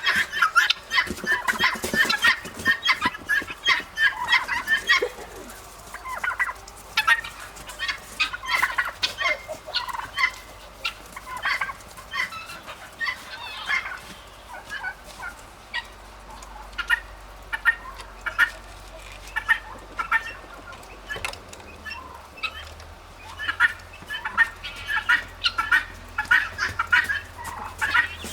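Farm poultry calling: many short, overlapping calls, thinning out in the middle and picking up again near the end.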